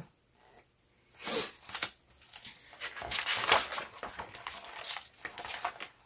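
Paper rustling and swishing as a page of a large hardcover picture book is turned and the book handled, starting about a second in and going on in faint patches until near the end.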